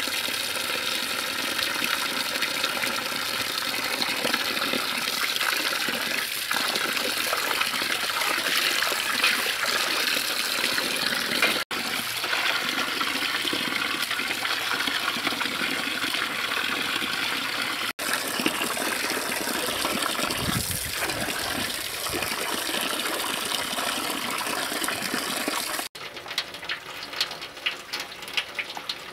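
Water from a hose gushing steadily into a metal basin full of small fish while a hand swishes them to wash them. Near the end it gives way to a cleaver knocking sharply on a wooden chopping block.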